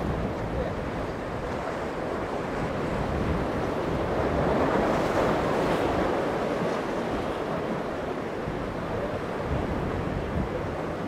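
Wind buffeting the microphone over breaking surf, with the low drone of a center-console boat's outboard motors running through the waves. The surf swells a little louder about halfway through.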